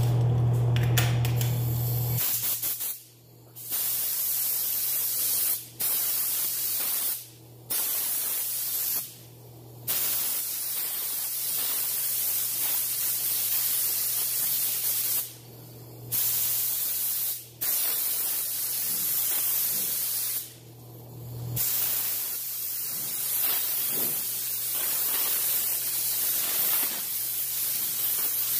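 Gravity-feed paint spray gun hissing as it sprays clear coat, in passes broken by seven short pauses where the trigger is released, then spraying without a break through the second half. A louder low hum fills the first two seconds, and a steady low hum runs underneath.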